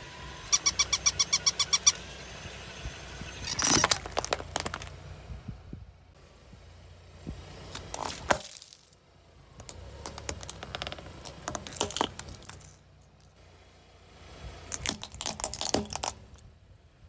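Car tyre crushing objects one after another over the low rumble of the car. First comes a fast run of about a dozen high electronic yips from a battery toy dog. Then several clusters of sharp cracks and crunches follow, as brittle plastic such as disposable lighters breaks under the wheel.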